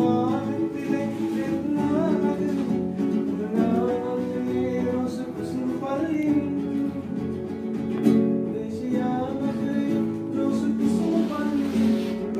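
An acoustic guitar strummed with a man singing a melody along with it.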